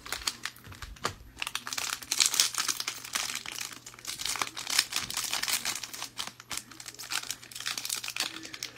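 Foil wrapper of a Panini Mosaic baseball card pack crinkling and tearing as it is ripped open by hand: a dense, uneven run of sharp crackles.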